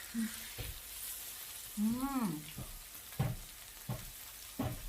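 Meat sizzling on a tabletop electric gourmet grill, a steady frying hiss. Utensils click against the pans several times, and there is a short voiced sound about two seconds in.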